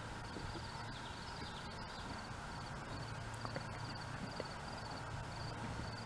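Outdoor ambience: a high-pitched trilled chirp from a small calling animal repeats two or three times a second over a low steady hum, with a few faint soft knocks.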